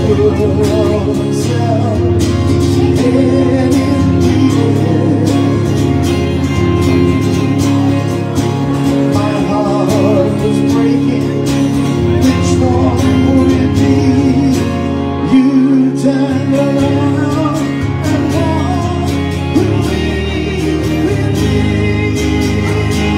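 A man singing live with an amplified electric guitar, a rock-and-roll ballad at a steady, full level.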